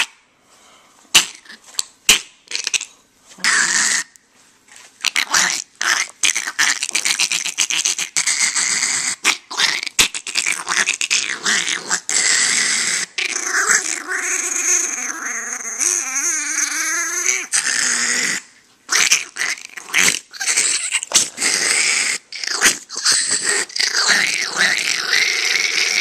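Chihuahua growling while mouthing and biting at a person's hand in rough play, in short broken bursts with brief pauses.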